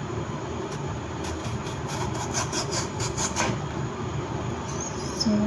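Small knife slicing through a red onion onto a wooden cutting board: a quick run of cuts, about four or five a second, that stops a little past halfway. A brief voice sound comes just at the end.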